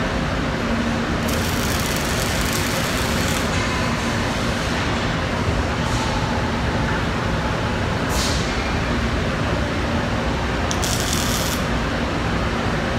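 Steady industrial shop noise, a dense even rumble, broken by bursts of hissing: a two-second hiss about a second in, a short one around eight seconds, and another near eleven seconds.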